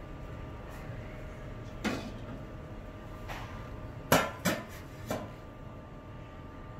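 Cookware clinking and knocking: one knock about two seconds in, then three quick clinks a little after the four-second mark, the first of them the loudest, over a steady low hum.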